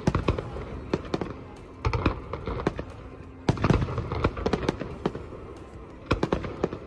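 Fireworks display: clusters of bangs and rapid crackling, with fresh volleys near the start and about two, three and a half and six seconds in.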